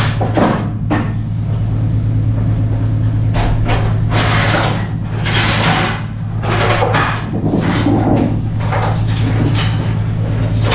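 A steady low mechanical hum with intermittent clattering, knocking and scraping from work on a heavy machine's wooden skid.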